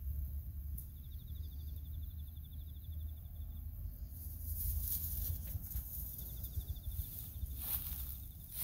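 An insect's fast, pulsed high trill, heard for a couple of seconds early on and again near the end, over a steady low rumble. From about halfway there is rustling and crackling in dry grass and stubble.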